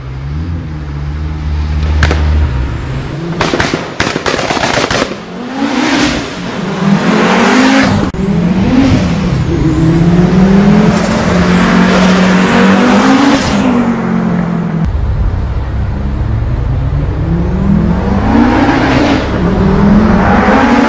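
Audi Quattro S1 rally car's turbocharged five-cylinder engine accelerating hard through the gears. There is a string of sharp exhaust bangs a few seconds in, and a high whistle rises with each pull. Near the end the engine note climbs again as the car comes back.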